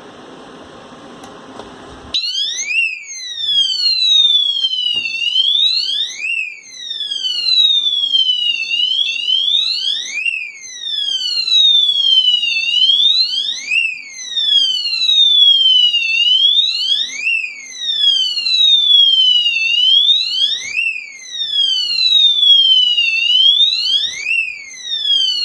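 Homemade intruder alarm set off and sounding its siren: a wailing tone that slides slowly down in pitch and then sweeps quickly back up, over and over about every three and a half seconds. It cuts in suddenly about two seconds in, after a steady hiss.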